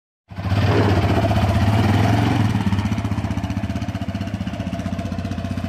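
Single-cylinder engine of a Yamaha Raptor 700R ATV running steadily through its exhaust with an even, pulsing beat. The sound cuts in abruptly a moment in.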